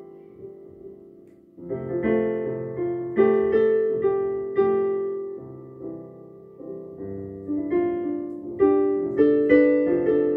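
Solo piano playing a slow piece. A held chord dies away, then about a second and a half in new chords and melody notes come in, each struck and left to ring out.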